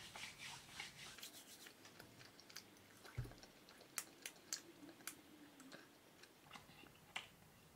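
Faint, irregular wet clicks and smacks of a man chewing beef jerky with his mouth closed, working his tongue against his teeth and the roof of his mouth to spread the flavour.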